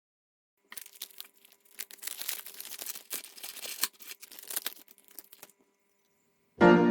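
Irregular crinkling and rustling with scattered sharp clicks, over a faint steady hum, for about five seconds. Music with piano-like notes starts near the end.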